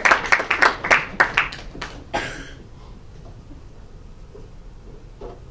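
Audience clapping at the end of an improv scene, individual claps distinct, dying away about two seconds in and leaving quiet room tone.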